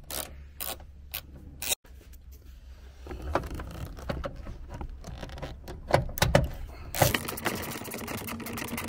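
A socket on a long extension working a steel bolt as cable lugs are fitted onto it: irregular metal scraping and clicking, with a few sharper metallic knocks around six seconds in.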